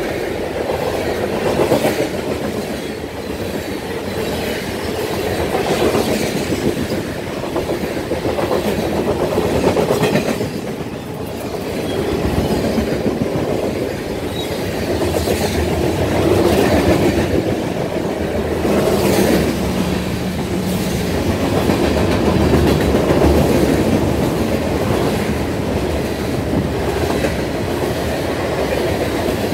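Freight train cars (covered hoppers, tank cars and boxcars) rolling past close by, their steel wheels clicking over the rail joints over a steady rumble.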